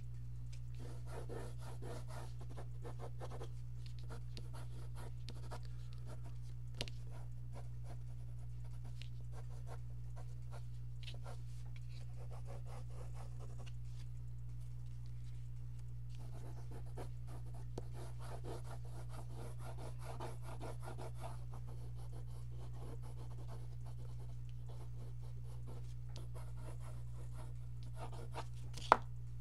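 Mechanical pencil scratching across paper in bursts of quick hatching and shading strokes, with quieter pauses between, over a steady low hum. A single sharp click comes just before the end.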